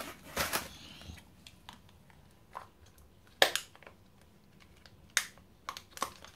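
Small fingers prying at a plastic Kinder Joy toy capsule: irregular sharp plastic clicks and snaps, with a short rustle near the start. The loudest click comes about three and a half seconds in.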